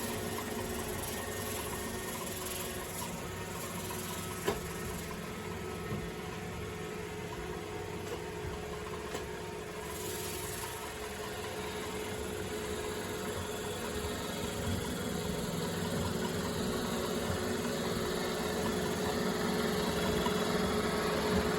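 iRobot Roomba j7+ robot vacuum running: a steady motor and fan hum with brush noise. It grows louder toward the end, and there is one sharp click about four and a half seconds in.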